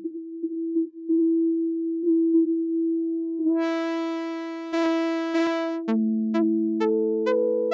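Teenage Engineering OP-1 Field synthesizer: a single pure, sine-like note repeats with short retriggers. About three and a half seconds in, as its encoders are turned, the tone becomes bright and buzzy. Near the end more notes come in one after another and stack into a chord.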